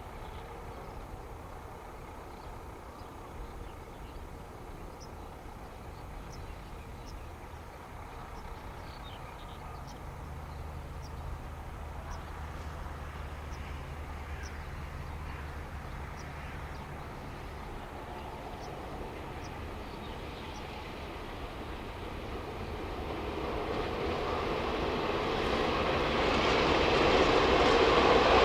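Freight train approaching: a distant low rumble that grows steadily louder over the last several seconds as it nears.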